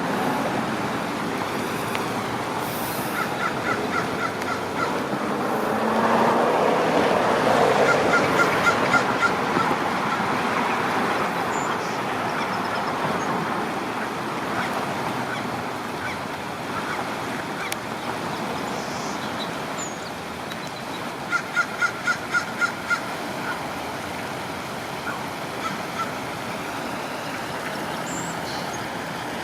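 Ducks calling in quick runs of about six short calls, several times, over a steady rushing background noise that swells for a few seconds early on.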